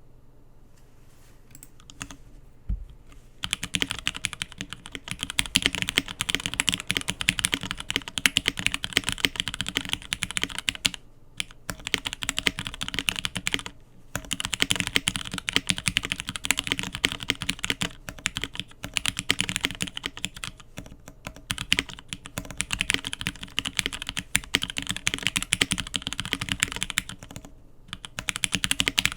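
Matrix Vita custom mechanical keyboard with lubed and filmed Hyperglide linear switches on 62g springs, an aluminum plate with silicone dampener, and GMK Kaiju keycaps, being typed on quickly and continuously. A few isolated keystrokes come first, then a dense, fast run of key presses broken by a few short pauses.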